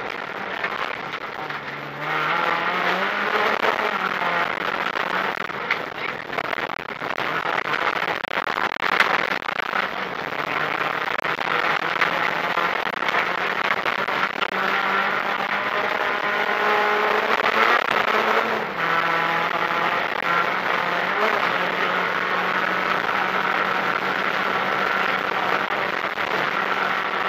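Renault Clio rally car's engine heard from inside the cabin at full throttle, its revs rising and dropping with gear changes, then held high and steady in the last third. Sharp knocks and clicks from the gravel road come through over the engine.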